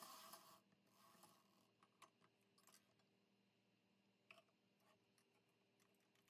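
Near silence: a faint rustle fading out in the first half-second, another brief one about a second in, then a few faint scattered clicks.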